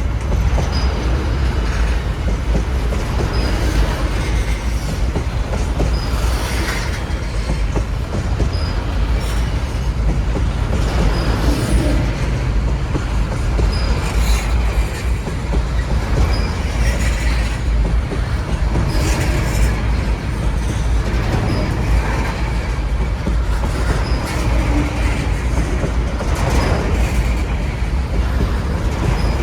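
Train rolling past with a steady heavy low rumble. Wheels knock over rail joints in a regular beat every couple of seconds, with short high wheel squeaks now and then.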